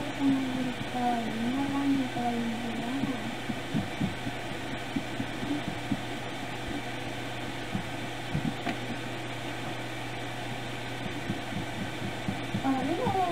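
A person humming a short wavering tune, then soft irregular taps of pencil and hands on a paper notebook while drawing, over a steady low hum. The humming starts again near the end.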